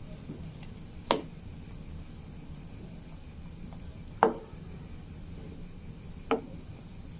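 Wooden spatula knocking three times against a pan of boiling milk and vermicelli while stirring, over a steady low background noise.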